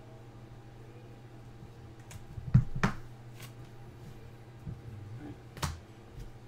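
Trading cards and a felt-tip marker handled on a tabletop: a few short sharp taps and clicks, the loudest pair about two and a half seconds in and another near the end, over a low steady hum.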